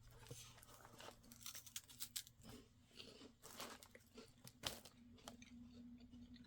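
Faint crunching and chewing of a crisp wafer cookie, a few scattered bites, over a low steady hum.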